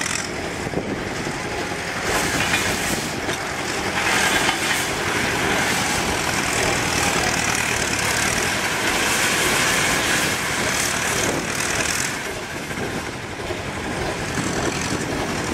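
Erie steam shovel at work: a steady hiss and clatter of its steam machinery over a low rumble, louder for a stretch in the middle.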